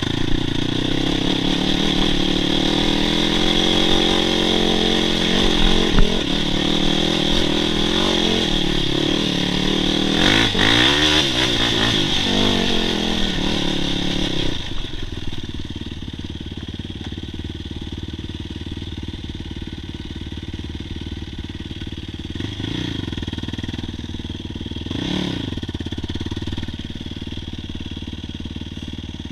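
ATV engine under way, revving up and down with the throttle, with a thump about six seconds in. About halfway through it drops abruptly to a quieter steady run, with two short revs later on.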